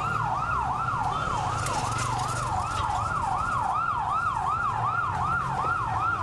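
Emergency vehicle siren in a fast yelp, its pitch sweeping up and down about three times a second, over a low rumble.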